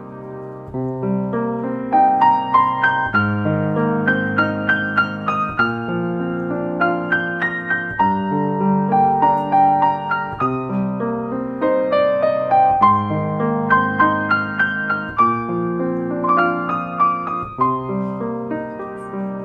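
Background piano music: a gentle melody over repeated chords, played at a steady pace.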